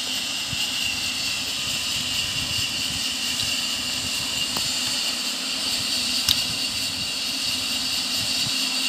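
A garden hoe scraping and chopping loose soil as a furrow is drawn, heard as soft irregular thuds under a steady rushing background noise.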